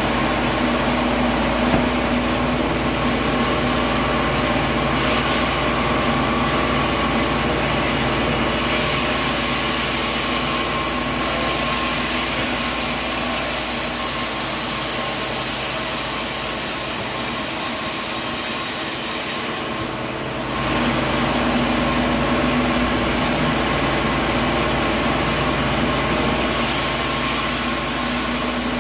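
Sawmill saw running and cutting wood: a steady, loud machine noise with a constant hum under it, dipping briefly about two-thirds of the way through before carrying on.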